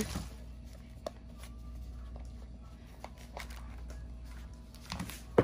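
Quiet room with faint rustling and a few light clicks from plastic toy packaging being handled, over a steady low hum. A short sharp knock comes near the end.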